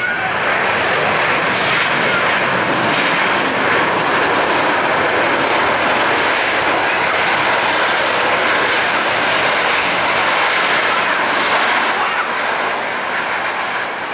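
Boeing 737-800's CFM56-7B turbofan engines giving a loud, steady roar as the jet rolls out after landing, easing off near the end.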